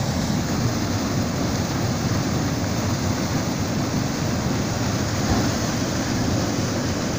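Whitewater pouring over a concrete weir into the plunge pool below: a steady, unbroken rush of falling water.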